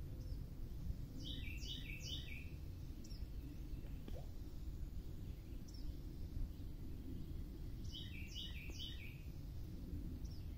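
A songbird singing twice, each time a short phrase of about three quick repeated notes, the two phrases some six seconds apart, with a few faint single chips between, over a steady low rumble of background noise.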